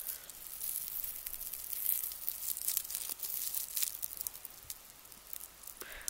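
Dried burdock burrs crackling and rustling as they are handled between fingers: a steady run of quick, crisp crackles, a little louder around two seconds in and quieter near the end.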